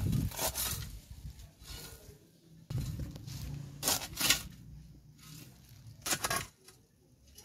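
A metal spade digging into dry soil, with about five scraping strikes a second or so apart as the blade is driven in and the dirt is thrown aside.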